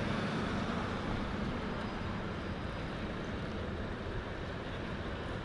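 Steady background noise of road traffic, an even hiss with no distinct events.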